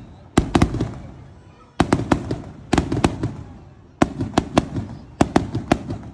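Fireworks going off in quick volleys: about five clusters of sharp bangs, each group of several reports followed by a rumbling decay.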